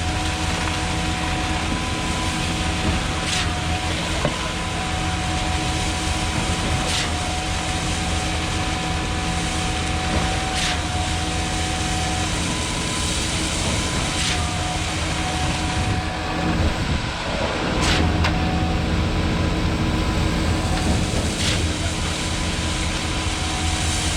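Concrete pump truck running: steady engine drone and hydraulic whine, with a sharp clunk about every three and a half seconds as the pump's valve shifts between strokes.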